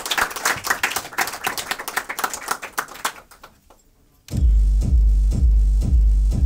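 Audience applause dying away, then after a brief pause a modular synthesizer set starts with a loud, deep pulsing bass beat at about two beats a second.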